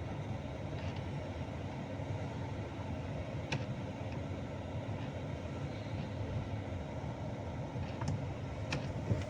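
Steady low hum of a Hyundai i20 running with its AC on, with a few short clicks, one about three and a half seconds in and two near the end. The freshly lubricated AC mode actuator works smoothly, with no grinding gear noise.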